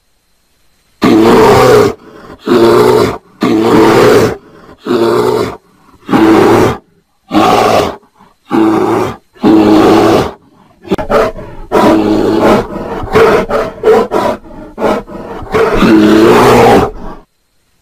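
Bear mating calls: a bear roaring in short, loud calls about a second apart, packing into a quicker run of calls in the second half.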